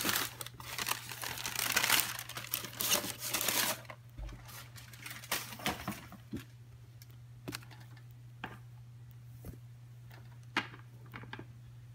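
Tissue paper crinkling and rustling as sneakers are pulled out of a shoebox, dense for about the first four seconds. After that come a few scattered light clicks and knocks as the shoes are handled and set down, over a steady low hum.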